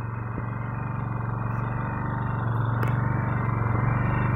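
An engine running steadily at an even speed, growing slightly louder.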